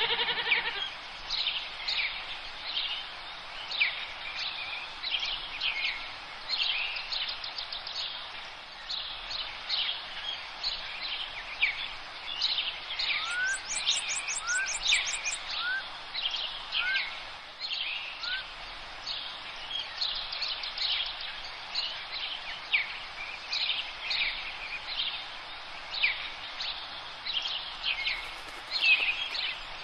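Several songbirds singing and chirping over outdoor background noise, with a rapid high trill about halfway through and a short run of rising chirps.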